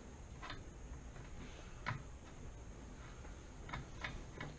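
A few scattered light clicks, about five, as a bicycle pedal is worked into its crank arm with a wrench.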